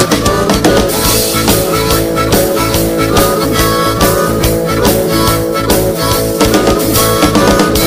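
Instrumental passage of a rock song played over a sound system: harmonica over guitar and drums with a steady beat, no singing.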